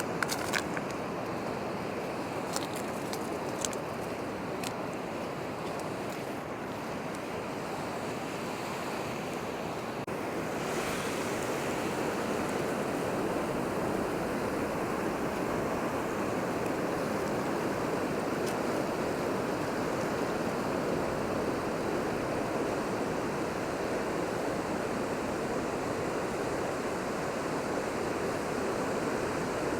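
Sea surf breaking on a beach, a steady wash of noise that grows a little louder about ten seconds in, with a few faint clicks in the first few seconds.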